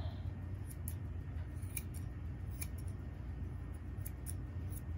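Straight grooming shears snipping through a Brittany's long, fluffy ear hair: a few short, sharp snips at irregular intervals, two of them close together near the end.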